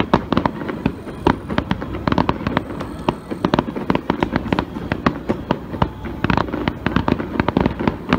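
Aerial fireworks shells bursting in a dense finale barrage: many overlapping sharp bangs, several a second, with a rumble between them and no let-up.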